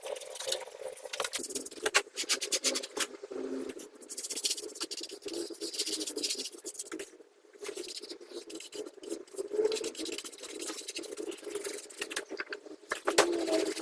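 Hand tool scraping and scratching over a hard craft surface in irregular short strokes, with a brief pause about halfway through.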